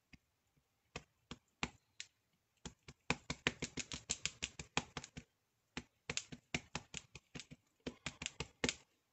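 An ink pad's plastic case dabbed repeatedly onto a large rubber leaf stamp on a clear acrylic block, making a string of quick sharp taps. A few spaced taps come first, then fast runs of about six taps a second, broken by a short pause about five seconds in.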